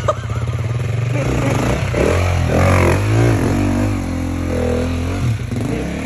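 Enduro dirt bike engine revving up and down again and again over a steady low running note. The bike is stuck nose-down in deep mud with its rear wheel spinning.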